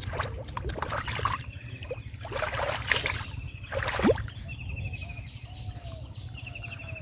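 River water splashing and sloshing in irregular bursts, loudest about two to four seconds in, with birds calling in short repeated notes.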